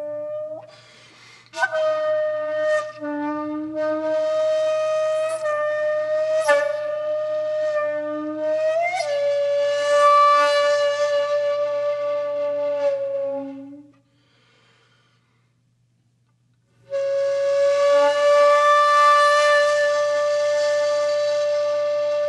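Slow background music: a single flute-like wind instrument playing long held notes with a few pitch changes. It falls silent for about three seconds midway, then comes back with one long sustained note.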